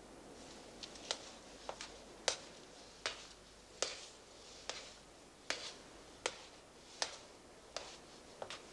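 Footsteps of hard-soled shoes climbing a staircase at a steady walking pace. Each step is a sharp click, about one every three-quarters of a second.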